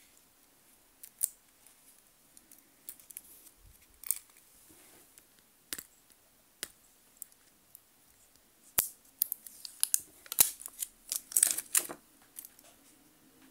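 Clear plastic protective film being picked at and peeled off a wristwatch's steel caseback: scattered sharp clicks and crinkles, densest in a cluster about nine to twelve seconds in.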